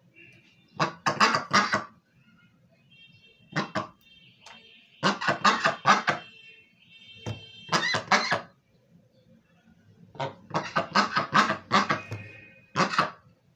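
Pekin duck quacking in rapid runs of short, harsh quacks, about six runs with pauses between them.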